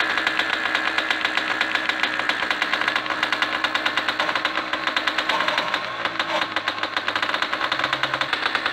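MTZ-50 tractor's petrol starting engine (PD-10 pony motor, a single-cylinder two-stroke) running steadily after being pull-started with a cord, with a fast rapping beat.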